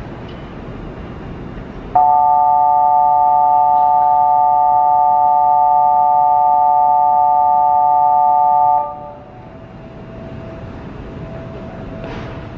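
Electronic platform departure signal at Nankai Namba: a loud, steady chord of several tones that starts suddenly about two seconds in and cuts off about seven seconds later, leaving a faint single tone for a few more seconds. It warns that the train at the platform is about to depart.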